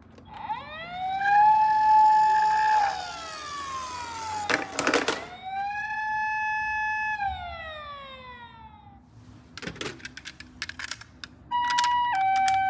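Siren wailing: the tone rises, holds, then falls, twice over, with a burst of clicks and knocks between the wails and a few more after them. About a second before the end a two-tone hi-lo ambulance siren starts, alternating evenly between two pitches.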